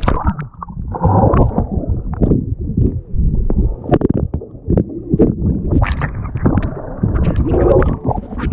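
Water sloshing and gurgling against a camera's microphone in a swimming pool, muffled, with many short splashes and knocks.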